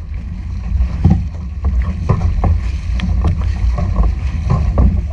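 Water rushing and splashing along the hull of a Hawaiian outrigger canoe under way, with short splashes about twice a second as the paddles dig in. A heavy low rumble of wind on the microphone runs under it.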